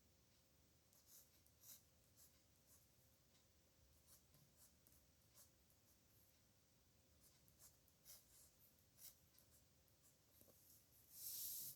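Pen writing on paper, heard faintly as short scratchy strokes at irregular intervals, with a longer, louder scratch or paper rustle near the end.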